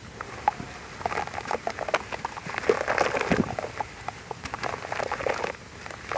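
Black sand heart shapes crumbling in foamy water: an irregular run of small crunches, cracks and wet crackles, thickest in the middle, with one heavier thud about three and a half seconds in.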